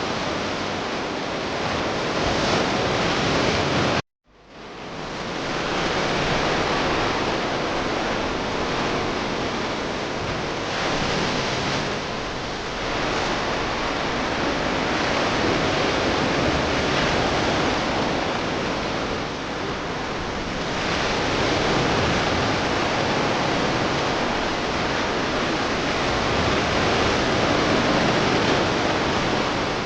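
Sea surf washing onto the shore: a steady rush that swells and eases every few seconds. It cuts out for a moment about four seconds in and fades back up.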